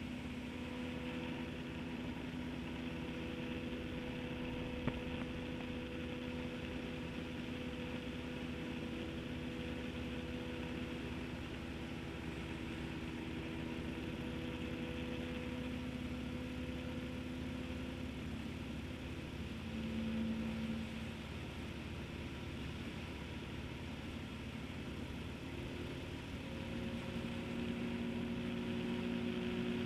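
Motorcycle engine running steadily while riding, with wind and road noise. The engine note shifts briefly about two-thirds of the way in and rises near the end as the bike speeds up.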